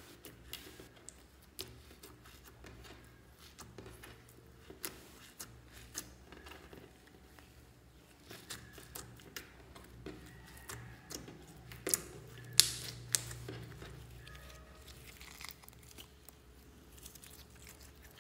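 Clear slime mixed with glitter being kneaded and pressed by hand: sticky crackling and small clicks, with a few louder sharp pops about two-thirds of the way through.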